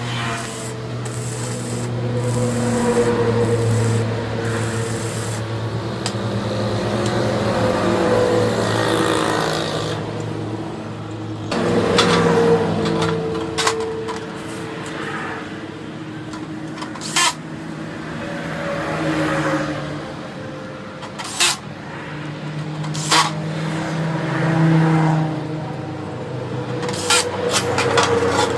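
A motor vehicle engine running, its pitch shifting up and down, with a few sharp clicks along the way.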